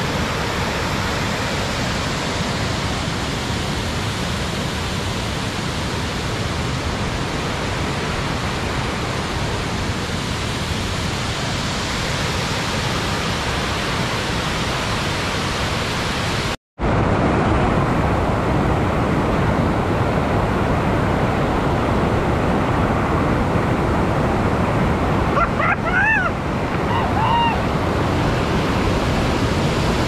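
Steady rush of a waterfall's falling water. It cuts out for an instant a little past halfway and comes back louder.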